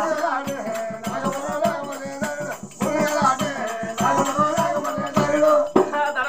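Oggu Katha folk ballad: voices singing over rhythmic percussion beaten at about four strokes a second.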